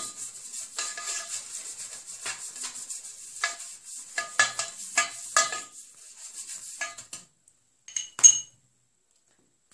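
Pastry brush swishing and tapping against a round baking pan as oil is brushed over its bottom, with light scrapes and knocks for about seven seconds. Two short ringing clinks follow near the end.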